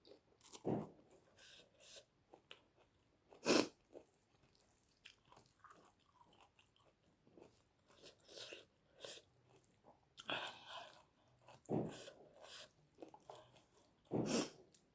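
Close-up chewing and mouth sounds of a person eating: irregular wet smacks and soft crunches, with the sharpest one about three and a half seconds in.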